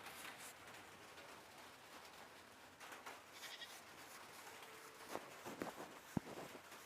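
A goat bleating faintly a few times, with a sharp knock shortly after.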